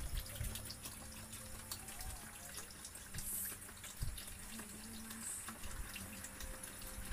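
A thin stream of water falling into a plastic tub and splashing, with scattered small drips and splashes from a spinning miniature water wheel. A faint steady hum runs underneath.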